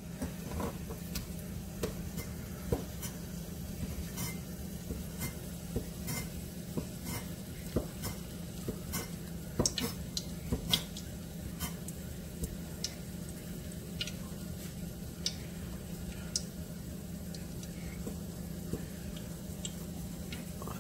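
Large knife chopping carrots and bell pepper on a wooden cutting board, irregular knocks of the blade on the board about once a second over a steady low hum.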